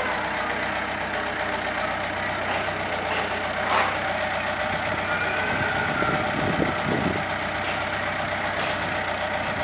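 Diesel engine of a Kobelco SK03 excavator running steadily, with a short clank about four seconds in.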